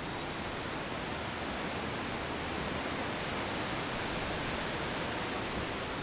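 Waterfall and river water rushing steadily.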